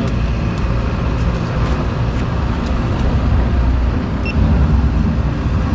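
Steady low rumble of motor vehicles running on the road, with a few faint ticks over it.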